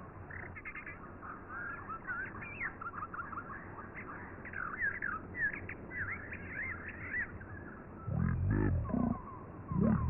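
Birds chirping and twittering in quick, repeated calls, then, about eight seconds in, a deep animal roar that comes twice and is louder than the birds. The sound is thin, as on old television audio.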